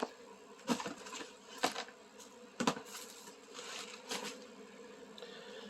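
Handling noise: five or so short rustles and brushes close to the microphone, such as a soft yarn skein being turned over in the hands.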